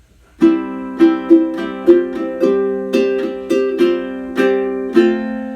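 Ukulele playing a short musical interlude: about a dozen strummed chords in an uneven rhythm, starting about half a second in, with the last chord left ringing near the end.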